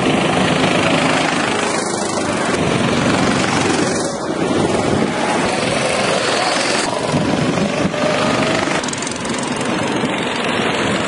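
Go-kart engines running as karts drive past on the track, a loud steady drone.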